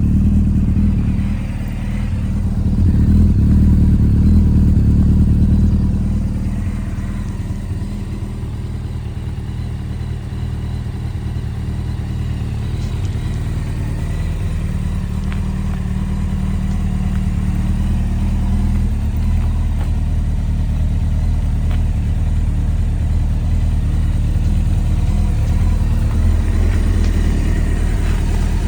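Honda CBR900RR SC33 FireBlade inline-four engine running at a steady low speed. It rises briefly a few seconds in, then settles back to an even note.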